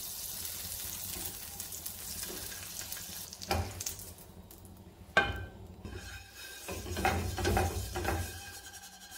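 Butter sizzling as it melts in a hot non-stick frying pan, a steady hiss. A few seconds in come sharp knocks, the loudest a little after 5 s like the pan set back on the hob grate, then a utensil scraping and clinking in quick strokes near the end.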